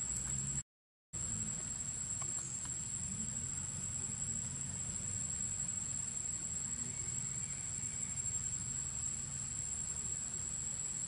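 Steady high-pitched drone of insects, unbroken except for a silent gap of about half a second near the start, over a low background rumble.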